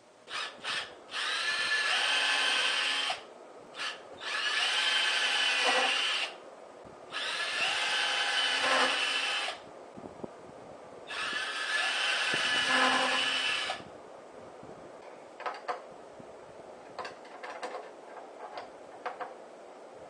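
Cordless drill running in four bursts of about two seconds each, with two short trigger blips before the first, fastening a metal handle to a wooden frame. Scattered light clicks and taps follow in the last several seconds.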